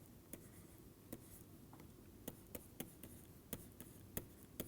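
Faint, irregular pen clicks and taps, about ten in four and a half seconds, as an equation is written out by hand.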